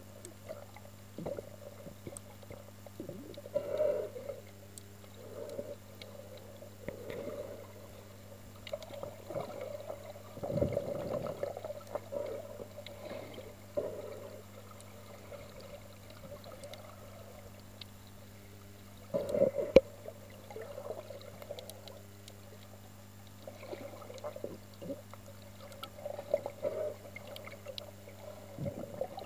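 Muffled underwater water noise picked up by a submerged camera: irregular sloshing and bubbling surges as it moves through the water, over a steady low hum. The loudest surges come about ten and nineteen seconds in.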